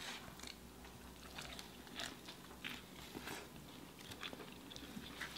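Faint chewing of burgers by two people eating, with small mouth clicks scattered throughout.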